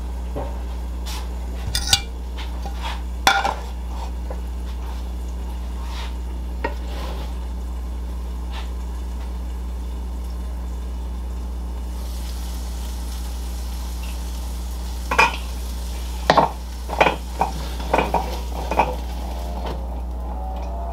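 Cookware clatter: a metal pan lid and a spatula knocking against a frying pan. There are a couple of sharp clinks in the first few seconds and a run of knocks and clinks about fifteen seconds in, as the lid comes off and the crepe is worked loose. A steady low hum and a faint sizzle from the pan run underneath.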